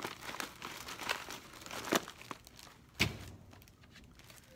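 Plastic zip-top bag crinkling and rustling as it is handled, with sharp knocks about two and three seconds in.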